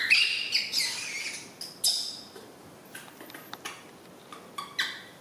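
Baby monkey giving high-pitched squealing calls: a long, loud, wavering squeal in the first second, another about two seconds in, then a few short chirps.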